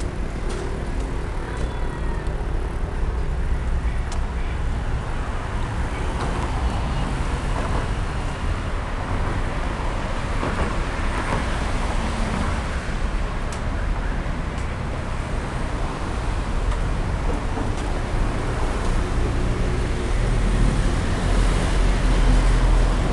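Steady road and engine noise of a moving car, heard from inside the cabin, with a low rumble that grows louder in the last few seconds.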